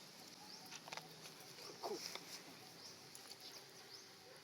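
Faint animal sounds: a few short, soft calls or squeaks, the clearest about two seconds in.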